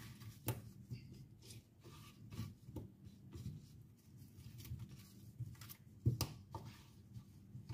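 Faint taps, clicks and rubbing as seasoned potato slices are handled and laid in a glass baking dish by a gloved hand, with a couple of sharper clicks about six seconds in.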